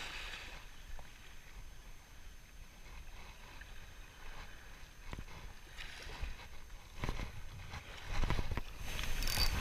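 Gentle wind and small waves lapping at the shoreline, with a few faint clicks. It swells into a louder wind rumble on the microphone over the last couple of seconds.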